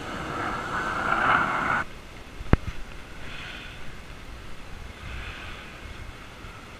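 Breaking surf and wind on the beach, growing louder and then cut off abruptly just under two seconds in. After it comes a much quieter open-air background with one sharp click, then a faint noise that swells twice.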